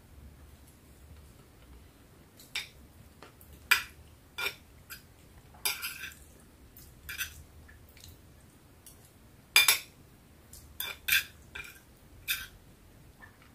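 Metal cutlery clicking and scraping against a paper plate on a plastic tray as food is scooped up, about a dozen short, irregular clicks. The loudest come just under four seconds in and again just under ten seconds in.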